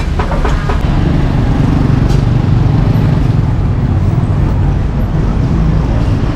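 Road traffic passing close by, a steady low rumble of engines and tyres.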